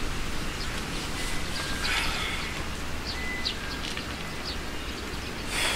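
Outdoor park ambience: small birds giving short, high chirps and a few thin whistles over a steady rush of wind. There is a brief rustle about two seconds in and another near the end.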